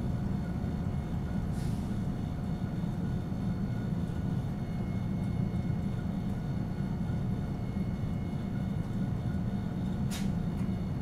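Interior running sound of a Nagasaki Electric Tramway Series 202 streetcar, built by Nippon Sharyo in 1950 with Mitsubishi resistor control: a steady low rumble from the car moving along the track, with a brief click about ten seconds in.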